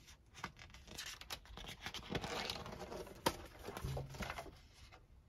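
Paper pages of a spiral-bound sketchbook rustling and flapping as it is picked up, opened and turned, with light taps and one sharp snap about three seconds in.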